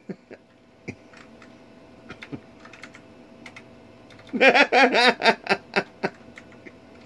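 Clicky Matias Tactile Pro keyboard keys being pressed one at a time, scattered and then a quicker run of keystrokes near the end. The keyboard's switches fail to debounce, so single presses register as several characters. A short wordless voice sound comes a little past halfway.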